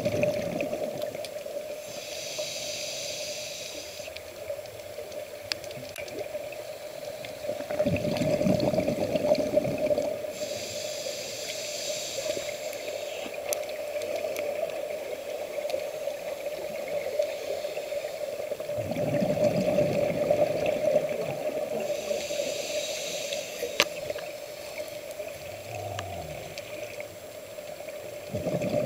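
Scuba diver breathing through a regulator underwater: slow breaths about every ten seconds, each a bubbling exhale followed by a hissing inhale. A steady hum runs underneath.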